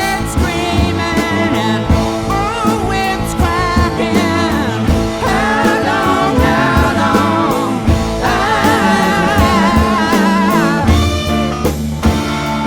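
A 1970s rock song playing: a lead voice sings over electric guitar, bass and a drum kit.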